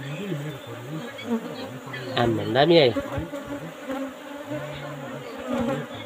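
A colony of Asian honey bees (Apis cerana indica) buzzing around an opened wall hive, a continuous drone that wavers up and down in pitch. About halfway through, one louder buzz rises and falls in pitch.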